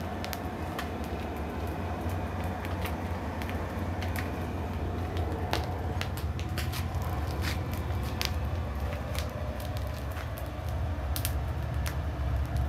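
Blacksmith's forge running: a steady low roar with scattered small crackles and pops.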